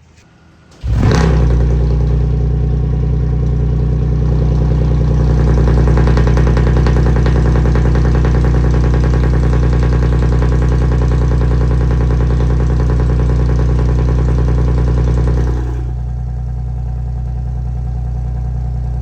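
Nissan VQ-series V6 exhaust on straight dual outlets with no X-pipe or resonator, starting up about a second in with a brief flare, then idling steadily. About fifteen seconds in the idle drops and gets quieter. The owner says this exhaust sounds like a tractor.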